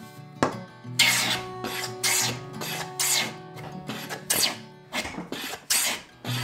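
A low-angle jack plane taking repeated strokes along a walnut board, each pass a short hiss of the shaving being cut, about one a second. Acoustic guitar background music plays underneath.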